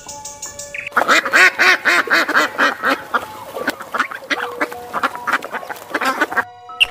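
Ducks quacking: a rapid run of quacks, about five a second, starting about a second in, then scattered quacks that stop suddenly near the end.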